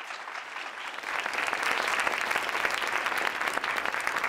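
Audience applauding in a lecture hall: many hands clapping, swelling to full strength about a second in and then holding steady.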